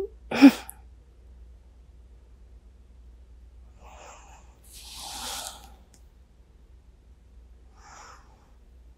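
A woman's short, sharp vocal burst close to the microphone about half a second in. Then a long breathy exhale about five seconds in, and a short faint breath near the end.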